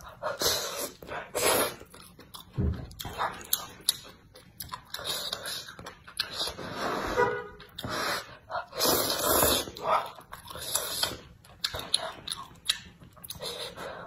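A person slurping up thick noodles in sauce and chewing wetly, in irregular bursts of sucking and smacking.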